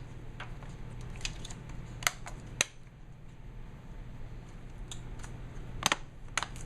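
Sharp plastic clicks and snaps as the HP Mini 210 netbook's bottom cover is slid and pressed back into place. A couple come about two seconds in and another pair near the end, over a faint steady low hum.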